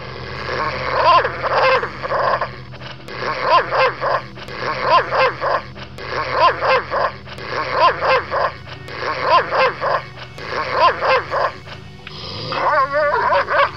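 German Shepherd barking over and over, about one bark every three quarters of a second, over a steady low hum. Near the end the barking gives way to a short, wavering whine.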